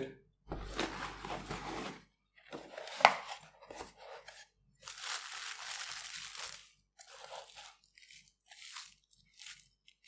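Cardboard box being opened and plastic bubble wrap pulled back and handled: several bursts of rustling and crinkling, with a sharp snap about three seconds in, then lighter scattered crackles as the wrapped item is lifted out.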